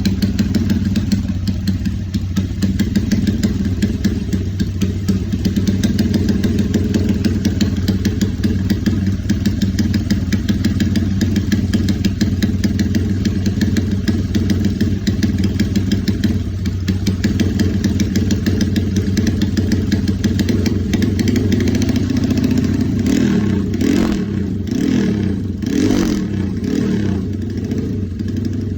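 Honda GL motorcycle's single-cylinder four-stroke engine running steadily through an aftermarket Fantera-style silencer with a bluemoon tip, then blipped a few times near the end.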